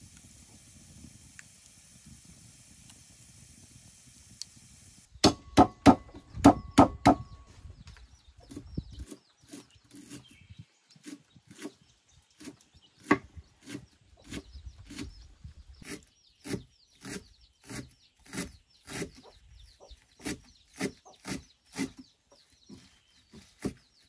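Kitchen knife chopping green onions on a thick round wooden chopping block, in steady strokes about one and a half a second, with a run of louder, quicker chops about five seconds in. It opens with a wood fire crackling quietly in a clay stove.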